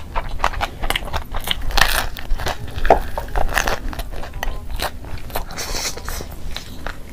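A person eating close to the microphone: chewing and biting into noodles, pizza and fried chicken. The sound is a quick, irregular run of short crackling clicks.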